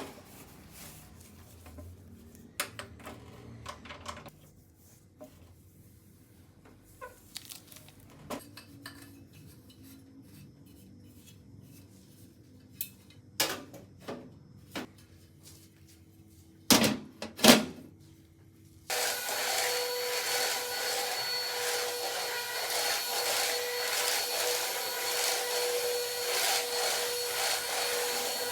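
A few scattered household knocks and clatters, then about two-thirds in a vacuum cleaner switches on and runs steadily with a constant whine.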